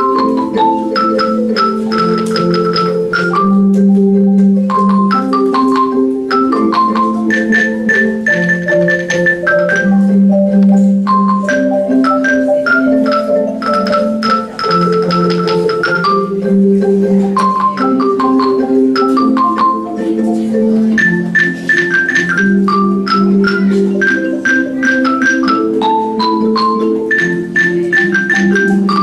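An ensemble of Orff soprano and alto xylophones, wooden bars struck with mallets, playing a piece together. A quick melody of struck notes runs over lower notes that change about every second, without a break.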